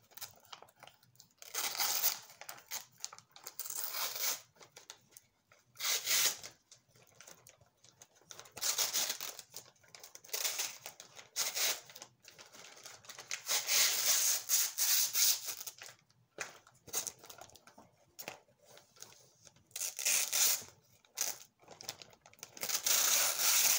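Thin clear plastic bags and packaging crinkling and tearing as they are unwrapped and handled, in repeated bursts of a second or two with short pauses between.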